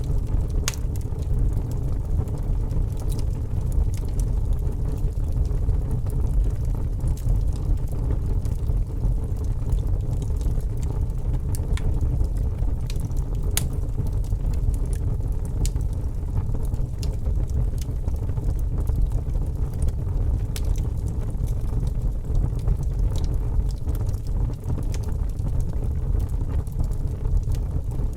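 Wood fire crackling in a fireplace, with sharp pops at irregular moments over a steady low rumble.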